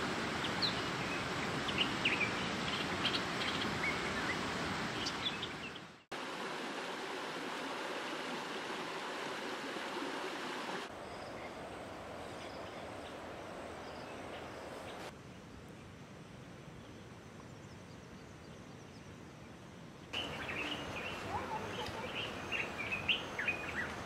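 Outdoor nature ambience: birds chirping over a steady background hiss. The background changes abruptly several times, with a brief dropout about six seconds in. The chirps are busiest at the start and again near the end.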